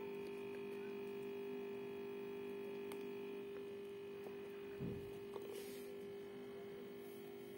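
A steady, even hum, with a single low thump about five seconds in.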